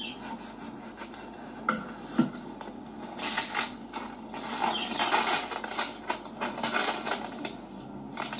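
A couple of short knocks, then a bread knife sawing back and forth through a loaf of bread in repeated strokes for several seconds, cutting it in half.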